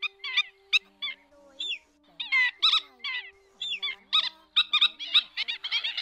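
Black-winged stilts calling: short, sharp calls repeated in quick series, in clusters with gaps at first and coming almost without pause near the end. Faint held notes of music sit underneath.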